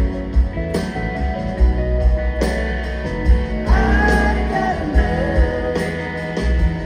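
Live rock band playing through a large PA, heard from the audience: regular drum hits under electric guitars, bass and keyboards, with a bending lead line about midway through.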